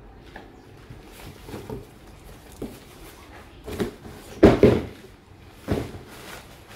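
Handling noise from a nylon tent carry bag and a cardboard box: a few rustling thumps, the loudest about four and a half seconds in, as the bag is lifted out and set down on the floor.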